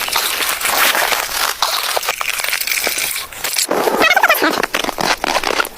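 Crunching and rustling of movement in snow, with a dog whining briefly about four seconds in.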